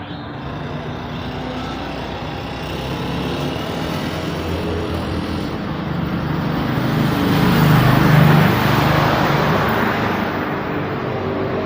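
Busy road traffic, with engines and tyre noise, as one vehicle passes close: it builds to its loudest about eight seconds in, then fades back into the steady flow.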